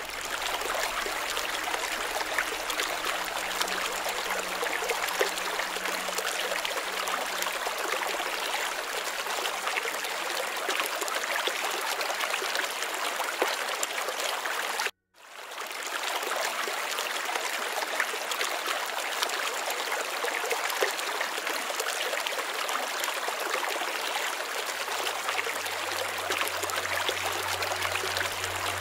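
Steady rushing sound of flowing water, like a stream, unchanging in level. It cuts out suddenly about halfway through and fades back in within a second, as at the seam of a looped recording.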